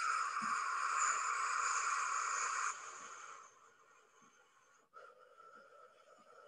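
A woman's long breath blown out hard, a steady hiss lasting almost three seconds before it tails off. A fainter breath follows about five seconds in.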